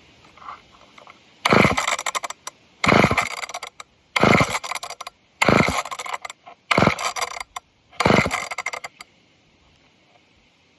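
An old two-stroke chainsaw being pull-started six times in quick succession, the recoil cord ripping out and the engine turning over with a rapid clatter each time without catching. Its carburetor has just been primed with fuel poured down the barrel.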